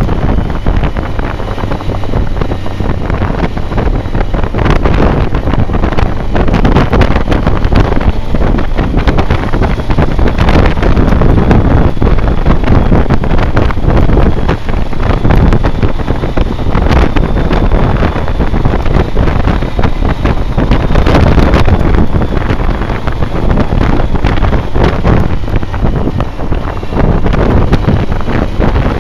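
Wind buffeting a handlebar-mounted pocket camcorder's microphone on a moving BMW K1200R Sport motorcycle, loud and continuous with frequent gusts, over the bike's inline-four engine running at road speed.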